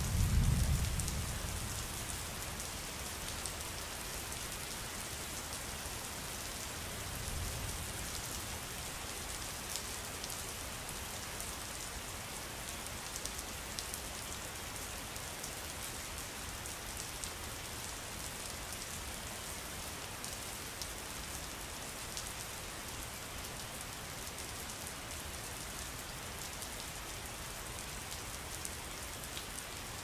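Steady rain, with the fine patter of many drops striking water. A low rumble sits under it right at the start, the loudest moment, and a fainter one comes around seven seconds in.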